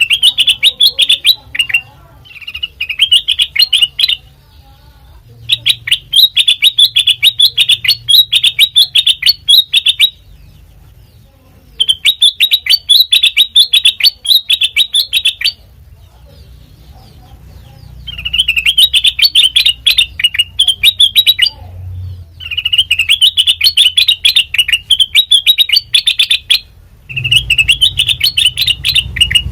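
Kutilang mas songbird singing: loud bursts of rapid chattering notes, delivered in phrases of a few seconds each with short pauses between them.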